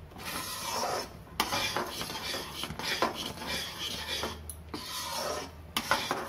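Perforated metal spatula scraping and stirring thick jaggery syrup around a kadhai, in repeated rasping strokes with a few brief pauses. The syrup is nearly ready.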